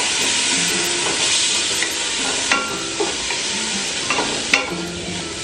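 Dried anchovies, dried shrimp, garlic and ginger sizzling in hot oil in a stainless steel pot with a steady hiss, stirred with a wooden spatula that knocks against the pot a few times in the second half.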